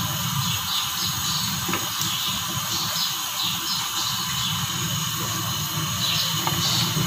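Thick black-eyed bean and chicken curry simmering in a large pot over a steady hiss, with a wooden spoon stirring through it in soft, irregular scrapes.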